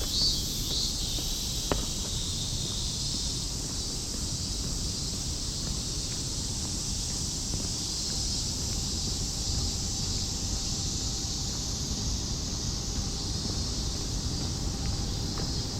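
Cicadas shrilling in a steady, unbroken high-pitched chorus, with a low rumble underneath.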